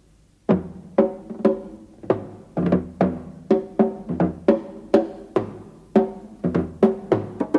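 Background music from the film's score: sharp struck notes with a short ringing tail, about two a second, starting after a brief pause half a second in.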